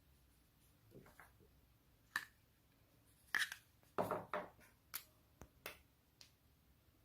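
Homemade slime being worked by hand: a scattering of short, sticky clicks and pops at irregular intervals, loudest in the middle.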